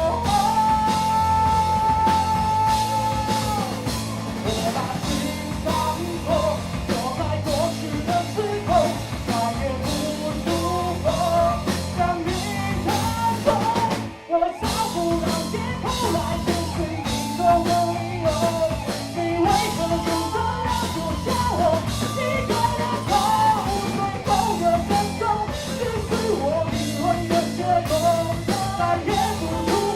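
Rock band playing live, a sung vocal line over electric guitars, bass and a steady drum beat. The music drops out for a split second about fourteen seconds in, then comes back in.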